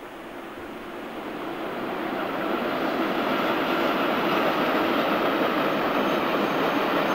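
Loaded iron ore train hauled by an MTAB Dm3 three-section electric locomotive rolling past, the running noise of wheels on rails growing louder over the first few seconds and then holding steady.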